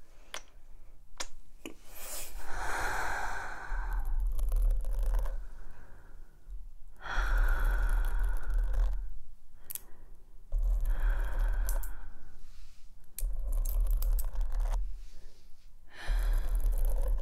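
Long silver claw-nail extensions scratching and rubbing over a foam-covered microphone, giving crinkly scraping with a heavy rumble. It comes in about five bursts of one to three seconds each, with short pauses between. A few sharp clicks come just before the first burst.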